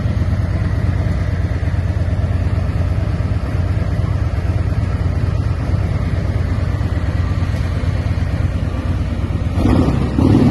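Harley-Davidson Street Glide Special's 122 cu in Screamin' Eagle Stage 3 V-twin running steadily through Vance & Hines Monster Rounds dual mufflers, with two quick throttle blips near the end.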